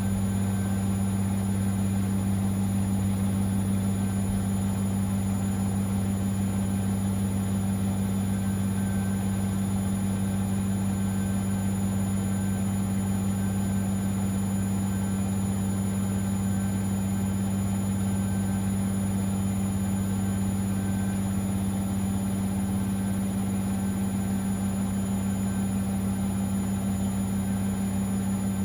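Siemens Extraklasse XLS 140 A washing machine running with a steady low hum that does not change.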